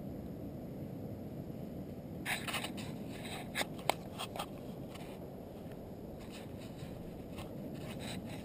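A steady low rumble with a cluster of short scrapes and clicks from about two to four and a half seconds in. The sharpest click comes near four seconds, and lighter ticks follow later.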